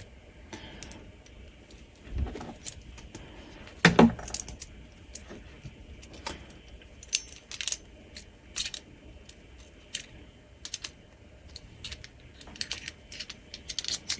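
Irregular metal clicks and clacks from an all-metal SmallRig HawkLock H21 quick-release monitor mount being handled and fitted together, with a louder knock about four seconds in.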